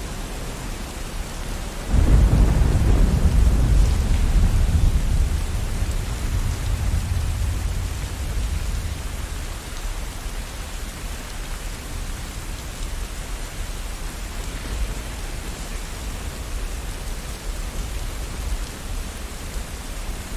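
Steady rain with a clap of thunder about two seconds in, a deep rumble that rolls on and fades away over several seconds, leaving the rain.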